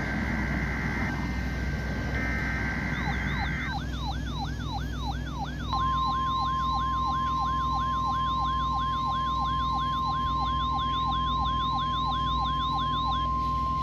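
NOAA Weather Radio warning alarm test: two bursts of buzzy SAME digital header data tones, then a siren-like warble sweeping up about three times a second, joined about six seconds in by the steady, louder 1050 Hz warning alarm tone.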